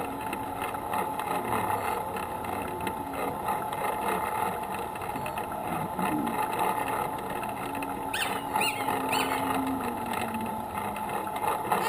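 A vehicle's engine running steadily as it rolls along at walking pace.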